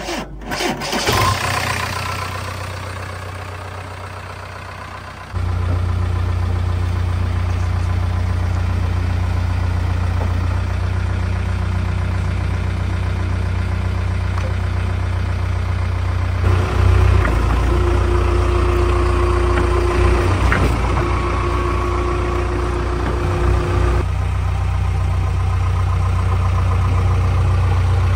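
JCB 3DX backhoe loader's diesel engine starting up and then running steadily. A steady whine joins in for several seconds in the middle.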